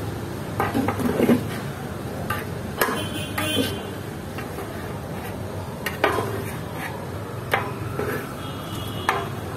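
A long metal ladle knocking and scraping against a large metal cooking pot as a thick pot of meat is stirred: irregular clanks about once a second, some with a brief metallic ring.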